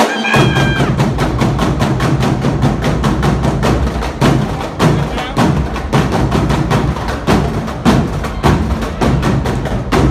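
Drumline of bass drums and snare drums playing a fast cadence of rapid, even strikes.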